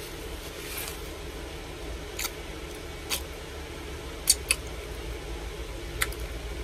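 Close-up eating sounds of a person chewing a fried chicken sandwich with ranch: about five sharp wet smacks or crunches spread across the few seconds, over a steady low hum.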